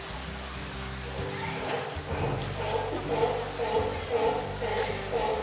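Cicadas buzzing steadily in a high continuous drone. From about two seconds in, a rhythmic pulsing sound comes in about twice a second. A low steady hum runs underneath.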